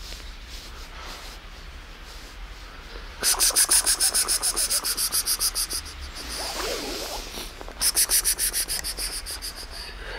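A hand scratching a cat's fur briskly, a fast rasping rub of about eight strokes a second, in two spells of two to three seconds each, with softer rustling between them.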